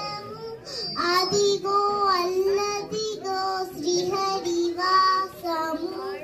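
A young girl singing solo into a handheld microphone, a melody of held notes in short phrases.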